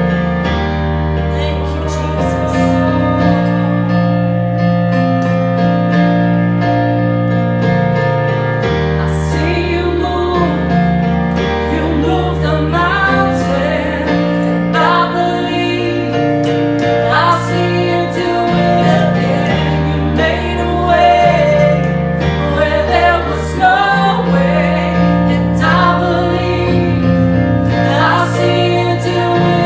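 Gospel worship music: sustained keyboard chords over a bass line, with a singing voice coming in about a third of the way through.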